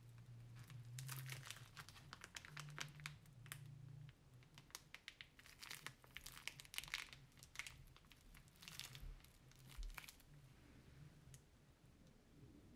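Thin plastic piping bag crinkling as it is squeezed and crumpled in the hand, a string of quick crackles in clusters that die away near the end.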